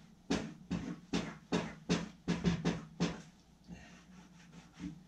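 A bar of Fjällräven Greenland wax rubbed vigorously back and forth over the jacket's fabric, a short scratchy stroke about every half second, with a brief lull a little past halfway.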